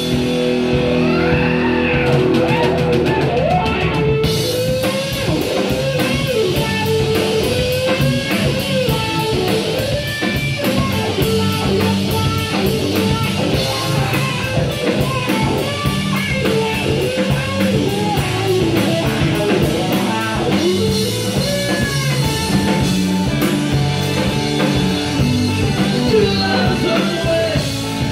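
Live rock band with electric guitar, bass, drum kit and keyboard playing a song at full volume, with a harmonica wailing a bending lead line over the band.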